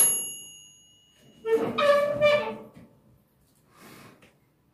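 A metal pan or lid clanks and rings out with a high metallic tone that dies away over about a second. About a second and a half later a pitched, wavering call lasts just over a second.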